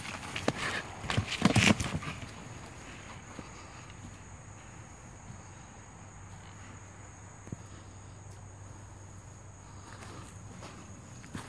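A buck deer, its antlers caught in a soccer net, thrashing on the ground: hooves and body scuffing and scraping through dirt and dry leaves for about two seconds, then it goes still, with more scuffling near the end. A steady high insect buzz runs underneath.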